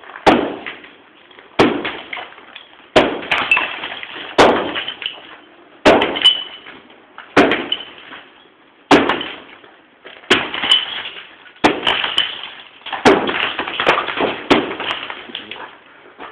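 Repeated heavy blows against a plastered brick wall being knocked down by hand, about a dozen strikes roughly every second and a half, each followed by crumbling plaster and brick debris rattling down.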